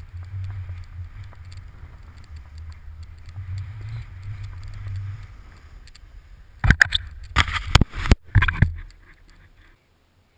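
Skiing through deep powder snow, the skis hissing over a low wind rumble on the action camera's microphone. Near the end a cluster of loud, rough bursts of buffeting and knocks, then it goes almost quiet as the camera comes to rest.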